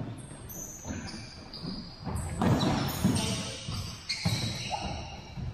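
Soccer ball thudding off feet and a hardwood gym floor among running footsteps and short high squeaks, all echoing in a large gymnasium.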